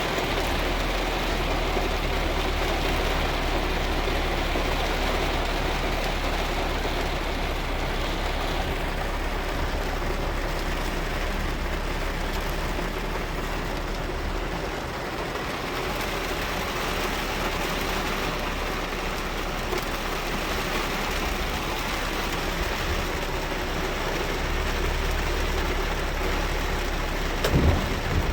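Steady rain falling on a car's windshield and body, heard with the car's engine running low underneath. A couple of short low thumps come near the end.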